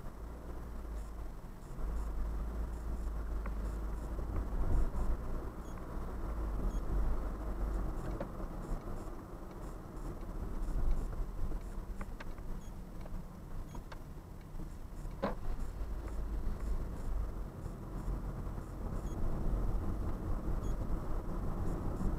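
Car engine idling while stopped, heard from inside the cabin through a dashcam microphone: a low, steady rumble, with a single short click about fifteen seconds in.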